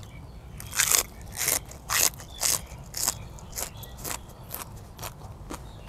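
Crisp crunching of raw green vegetable being bitten and chewed close to a clip-on microphone, about two crunches a second, loudest in the first half and fainter after.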